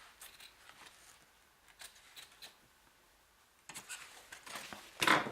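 Scissors snipping away excess fabric: a few faint, short snips, then louder rustling of the fabric being handled, loudest near the end.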